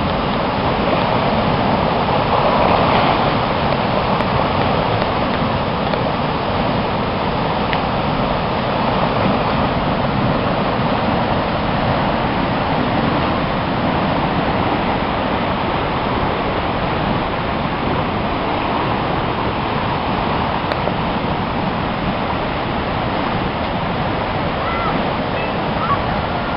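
The River Sid in spate, its brown floodwater rushing and churning over its banks in a loud, steady torrent.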